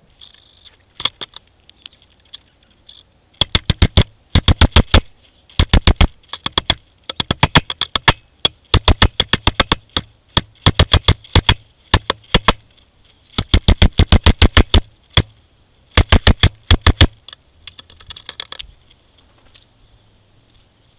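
Hairy woodpecker pecking directly on a camera: loud volleys of sharp beak taps, about ten a second, each volley lasting half a second to over a second. A few lighter single taps come first, and a softer flurry follows near the end.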